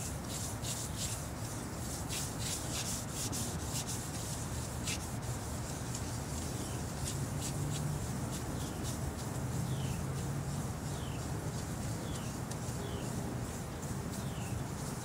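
Hand scrubber rubbing over the wet, concrete-crusted painted steel at the back of a ready-mix truck in repeated uneven scrubbing strokes. The remover is being worked into the dried concrete film to loosen it.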